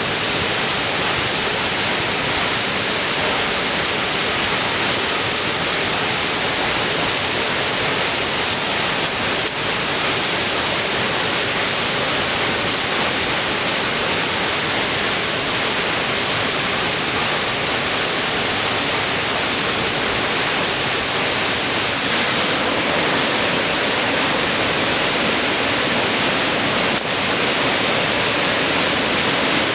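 Waterfall rushing: a steady, loud hiss of falling water, with a few faint clicks about nine seconds in and near the end.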